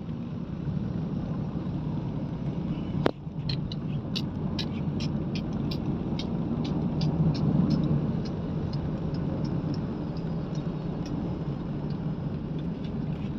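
Steady low rumble, with one sharp click about three seconds in followed by a run of light ticks, about two a second, lasting several seconds.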